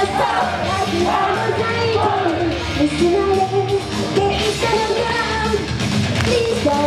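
A woman singing a pop song live into a handheld microphone over a loud, steady backing track.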